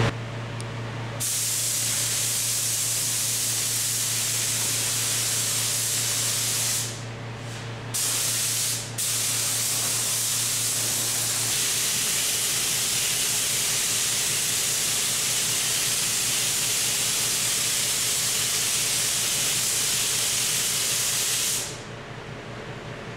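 Gravity-feed spray gun spraying waterborne primer onto a metal aircraft wing, laying the second cross coat: a steady air hiss while the trigger is held. It starts about a second in, breaks off twice briefly around seven and nine seconds in, and stops shortly before the end.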